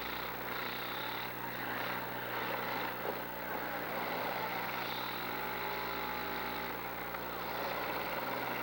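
Demolition derby cars' engines running and revving in the arena, with a steady low hum under them.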